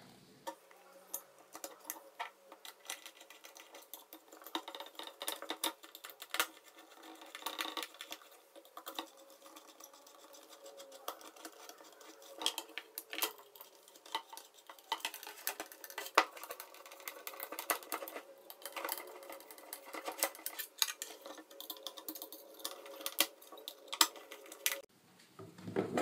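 CPU cooler being pressed and clipped down onto a motherboard by hand: irregular sharp clicks and knocks of its plastic fan housing and mounting clips, with a few louder snaps.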